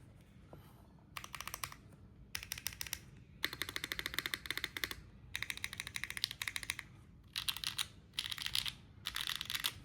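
Mechanical keyboard in a KBDfans Tofu Redux aluminium case being typed on fast: keystroke clatter in seven bursts of one to two seconds each, separated by short pauses.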